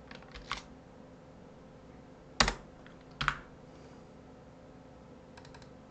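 A few separate keystrokes on a computer keyboard: light taps near the start, two louder key presses about a second apart in the middle, and faint taps near the end.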